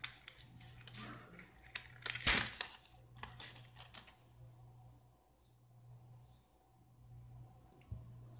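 Clear plastic clamshell packaging crackling and clicking as it is pried open and a DDR2 memory module is pulled out, loudest in a sharp crack a little over two seconds in. After about four seconds only faint handling noise remains.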